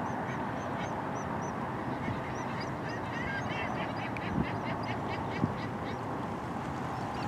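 Birds calling over steady wind and water noise: a run of short, high chirps repeating throughout, thickening into a busy chatter in the middle. Two brief low thumps land about four and a half and five and a half seconds in.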